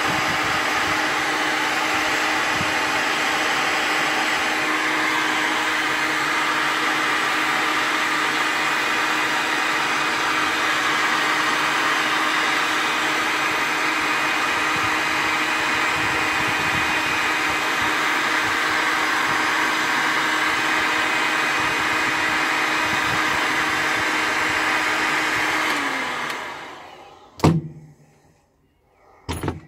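Electric heat gun running steadily, a loud fan whir with a constant hum. Near the end it is switched off and winds down, its hum sliding lower as it fades, followed by two sharp knocks.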